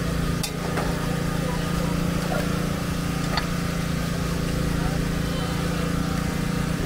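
A small engine running steadily with a constant low hum, under the chatter of people's voices, with a couple of brief clicks.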